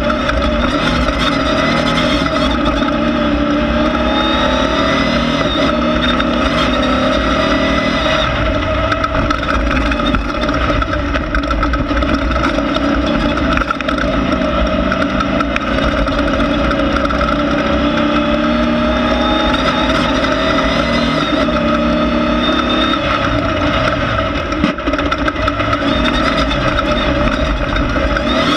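Air-cooled Volkswagen flat-four of a Class 1600 off-road race car running hard, its pitch rising and falling as the throttle is worked.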